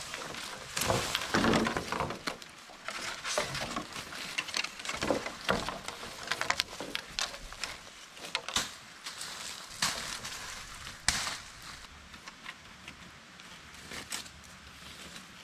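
Green bamboo poles knocking and clattering against each other as they are lifted and handled, with dry leaf litter rustling and crunching underfoot. The knocks come thickest in the first couple of seconds, with a single sharp crack about eleven seconds in.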